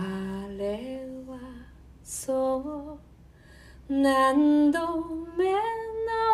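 A woman singing a slow melody almost alone: a few held notes that step up and glide between pitches, with short breaths between phrases and no clear instrumental strokes beneath.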